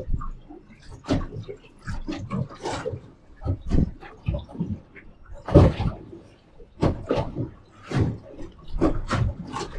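Water slapping and splashing against the side of a small boat rocking on a choppy sea, in irregular short thumps and splashes about one or two a second.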